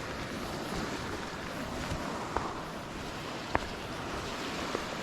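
Steady wash of sea surf with wind buffeting the microphone, and a couple of sharp clicks about two and a half and three and a half seconds in.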